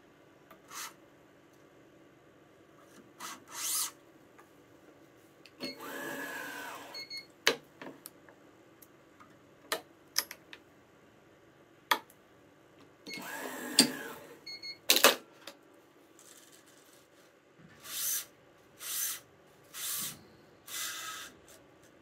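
Yonex ES5 Protech stringing machine's tension head whirring twice, each time for about a second and a half, as it pulls a cross string of a badminton racket to tension. Around it come sharp clicks of the string clamps and short hissing swishes of string being drawn through the racket's strings by hand.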